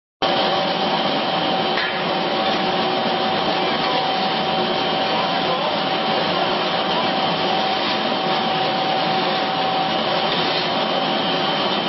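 Horizontal ring die feed pellet mill running steadily under its electric motor: a continuous machine noise with a faint steady whine.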